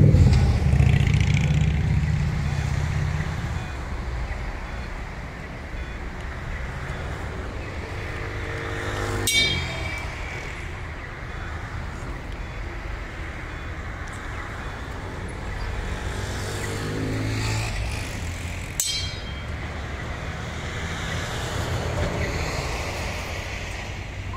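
Road traffic at a city intersection: a vehicle's engine passes close and loud at the start, then a steady traffic hum from passing cars. Two sharp, brief sounds cut through it, about nine and nineteen seconds in.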